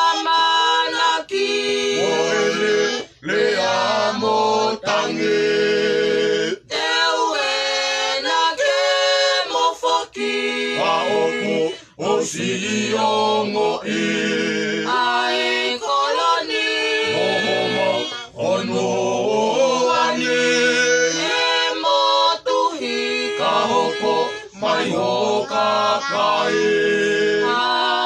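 Mixed group of men's and women's voices singing together without accompaniment, in long phrases with short breaks for breath.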